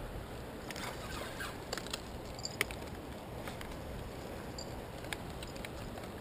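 Steady rush of fast-flowing river water, with a few sharp clicks and taps from a spinning rod and reel being handled, a cluster of them about a second in and single ones scattered after.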